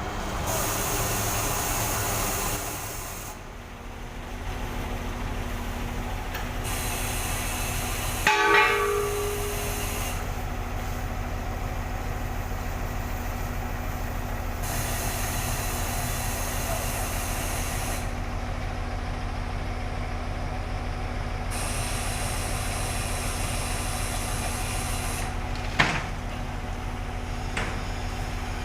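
Diesel engine of a concrete pump truck running steadily, with stretches of hissing that start and stop, a short loud burst about eight seconds in, and a sharp click near the end.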